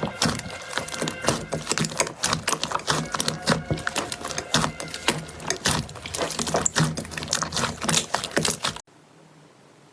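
Slime being pressed and squished by hand, making dense, quick clicking and crackling sounds that cut off abruptly near the end, leaving a faint hiss.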